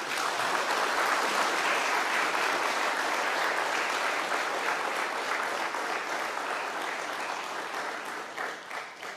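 An audience applauding, a steady wash of many hands clapping that slowly dies down near the end into a few scattered claps.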